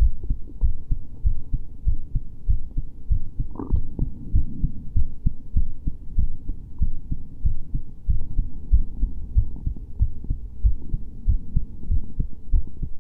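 Recorded heartbeat: a continuous run of low, muffled thumps in a steady rhythm, with a brief scuffing noise about three and a half seconds in.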